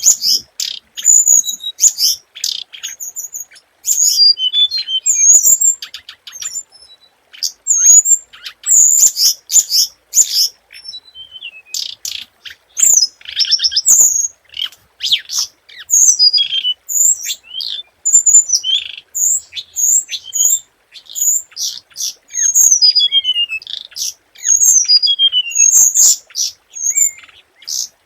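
A hồng hạnh songbird singing a lure song: quick, sharp high chirps and whistled notes in short phrases with brief pauses, several of them fast falling trills.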